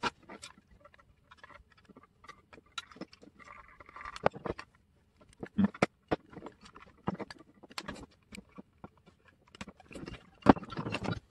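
Irregular small plastic clicks, taps and scrapes from prying apart and handling the plastic body of a 1:32 scale Siku Control32 RC truck, with a short scrape about four seconds in and a denser run of clicks near the end.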